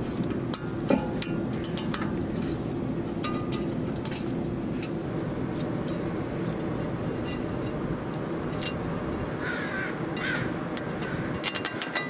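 Light metallic clicks and taps as new brake pad spring clips are pressed onto a rear caliper bracket. A bird calls twice about ten seconds in.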